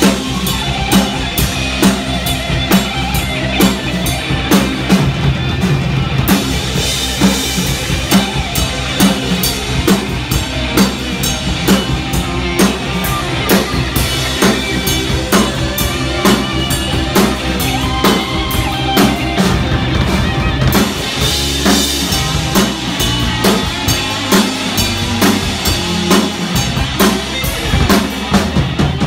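Live rock band playing loudly: a driving drum kit with electric guitars and bass guitar, with no vocals in this stretch.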